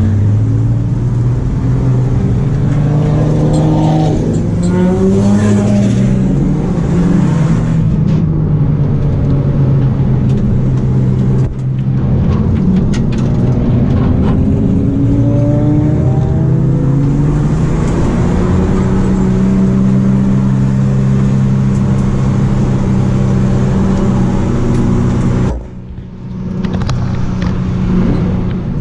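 Ford AU Falcon XR6's inline-six engine heard from inside the cabin under hard track driving, the revs climbing and falling repeatedly through the corners and gear changes. Near the end the engine sound drops away abruptly for about a second before picking up again.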